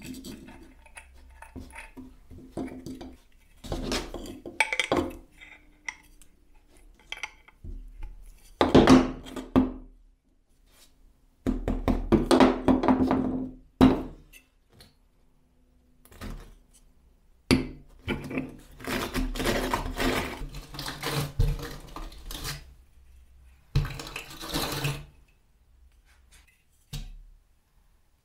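Small metal parts being handled and screwed together on a workbench: a bolt, nut and steel angle bracket, then a wire cup brush threaded onto the bolt. Metal clinks and scrapes come in several separate bursts.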